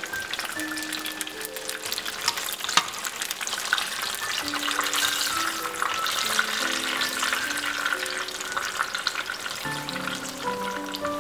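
Turon, banana and jackfruit spring rolls, frying in a pan of hot oil: a steady sizzle full of small pops and crackles. A soft background melody plays over it.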